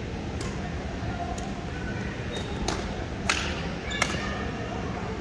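Badminton rally: sharp knocks of rackets striking the shuttlecock, five in about four seconds, the last two loudest, with some echo from the large hall over a steady background hum.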